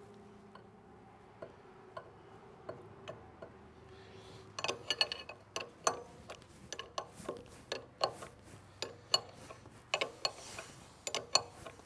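Metal clicks and taps from a wrench working on hydraulic hose fittings. A few scattered clicks at first, then from about four and a half seconds in a run of sharp, irregular clicks, several a second.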